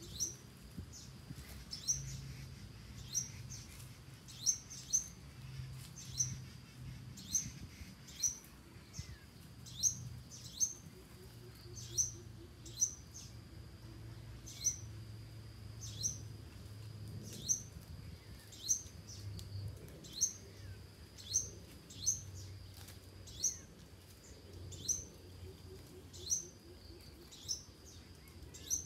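A small bird's sharp, high chirp repeated about once a second, with a few short runs of deep hooting notes underneath, the kind greater coucals make.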